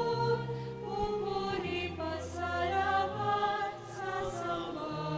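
Entrance hymn: slow singing that holds long notes over sustained low accompanying chords, which change every second or two.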